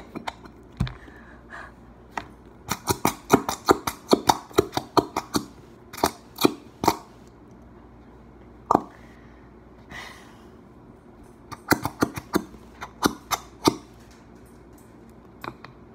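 Plastic squeeze bottle of glow-in-the-dark glue squeezed upside down, spluttering at the nozzle: several clusters of rapid sharp pops and crackles separated by pauses.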